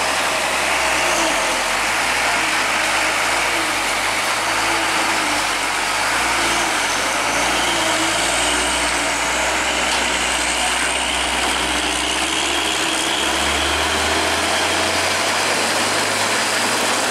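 Diesel engine of a container truck running at low speed as it pulls a shipping container past, under a steady hiss. The engine note shifts about three-quarters of the way through.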